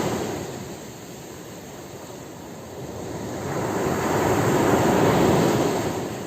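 Ocean waves breaking on a beach. One wash fades away in the first second; after a lull, the next wave swells and breaks a little past the middle, then fades near the end.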